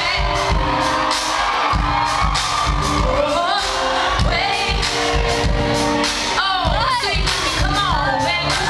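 Live neo-soul band playing a steady drum beat under a singer's sliding, melismatic vocal lines, echoing in a large hall with the crowd faintly audible.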